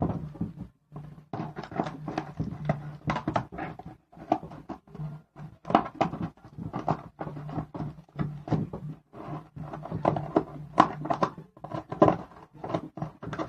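Delivery package being opened by hand: a busy run of irregular crinkles, rips and knocks from cardboard and plastic packaging, over a steady low hum.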